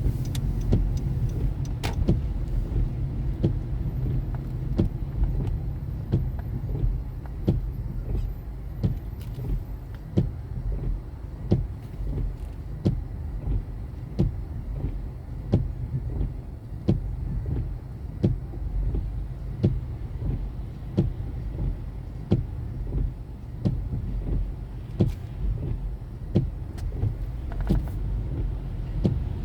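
A car being driven, with a steady low rumble of engine and road noise. Through it runs a regular sharp tick, about one and a half a second.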